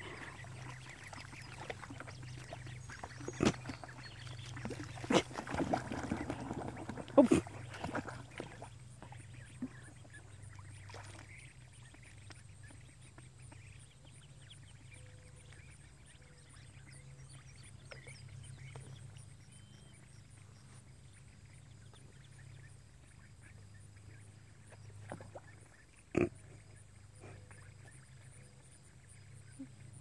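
Young mallard ducks quacking softly, mostly in the first several seconds, then quieter. A few sharp clicks stand out among the calls, with one more near the end, over a steady low hum.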